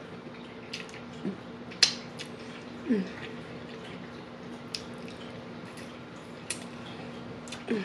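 Close-up eating sounds of someone chewing fried chicken and licking her fingers: scattered wet mouth clicks and lip smacks, the sharpest about two seconds in, over a steady low hum.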